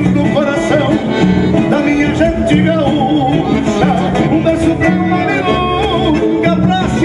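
Live traditional gaúcho music through a PA: accordion and acoustic guitars playing, with a male voice singing at the microphone.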